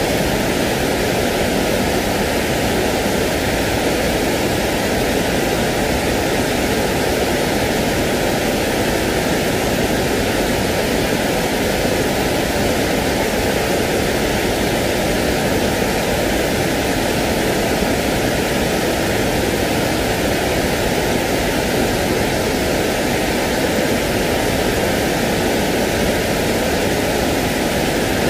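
Steady, unchanging white-noise-like hiss, the constant sleep noise played to soothe a crying baby.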